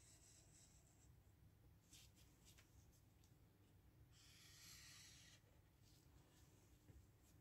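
Faint scratch of a black felt-tip pen drawn across paper: a short stroke at the start and a longer, louder one about four seconds in, with a few light ticks in between.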